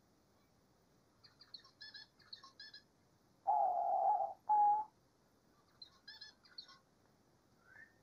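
Diamond dove cooing: one long, even coo about three and a half seconds in, followed at once by a short second coo. Soft, quick, high twittering notes come before and after it.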